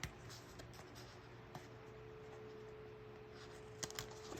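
Near quiet: a faint steady tone runs through, with a few soft taps and clicks of cardstock pieces being handled.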